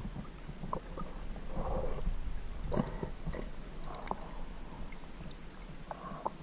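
Muffled underwater sound heard through a GoPro's waterproof housing in a creek: a steady low rumble of moving water with scattered sharp clicks and a few short muffled bursts.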